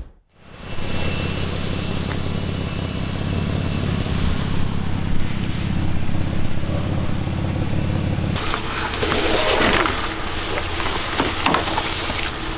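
An engine idling steadily, a low even hum. About two-thirds of the way in, the hum eases, and clatter and a few sharp knocks of gear being handled come in.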